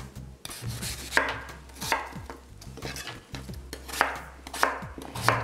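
Chef's knife slicing daikon radish and potato on a wooden cutting board, the blade knocking on the board with each cut: about five sharp knocks, irregularly spaced.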